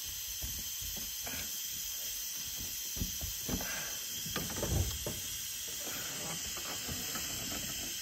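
Pliers gripping and twisting a rubber transmission cooler hose to slide it off its metal line: faint clicks and scrapes, strongest about three to five seconds in, over a steady hiss.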